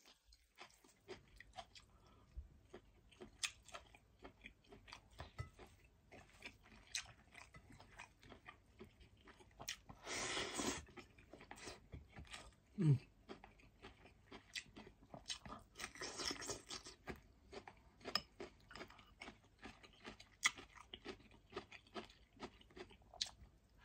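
Close-up chewing of a mouthful of rice and meat, with many small wet smacks and clicks. Two longer breathy sounds come about ten and sixteen seconds in. A short falling hum near the middle is the loudest moment.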